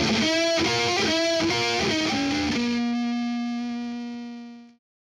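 Outro jingle music: a quick melodic phrase, then a final chord held and fading before it cuts off near the end.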